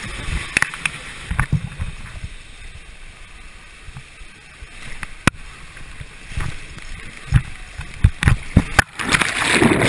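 Ride down an enclosed water-slide tube: water rushing along the slide with a low rumble and many short thumps and knocks as the rider's body bumps the tube walls. It gets louder and splashier about nine seconds in.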